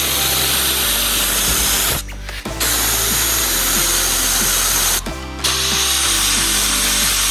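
Compressed air from an air-compressor blow gun blasting at fidget spinners: a loud steady hiss, likely mixed with the spinners' whir, that cuts off briefly twice when the trigger is let go.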